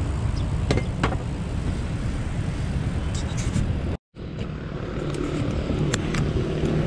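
Steady wind rumble on a cyclist's microphone with city road traffic. The sound cuts out to silence for a moment about four seconds in.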